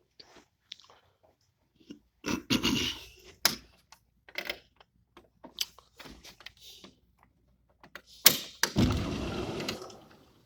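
Clicks and knocks, with two longer rushes of noise, the second fading out near the end, from a door being unlatched and slid open.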